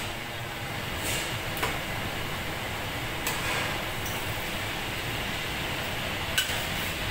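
Steady rushing of a kitchen extraction hood, with a few sharp metallic clicks as steel tongs knock against a large steel pan, the loudest near the end.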